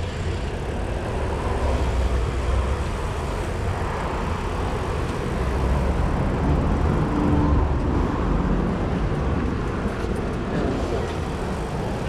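Traffic and riding noise heard from a bicycle crossing a city bridge: a steady low rumble of passing cars and road noise that swells about two seconds in and again from about five to eight seconds in.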